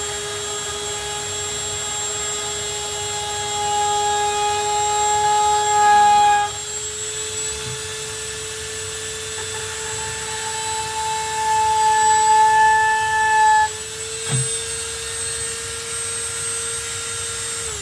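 Dremel rotary tool on a flexible-shaft extension running with a steady high whine while it drills small screw holes in a guitar top, louder for a few seconds twice as the bit works. It winds down in pitch at the very end as it is switched off.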